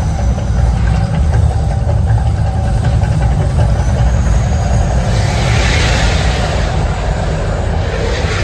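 Deep, loud, steady rumble of the Mirage volcano show's eruption effects, with a rushing hiss that swells about five seconds in and dies away near the end.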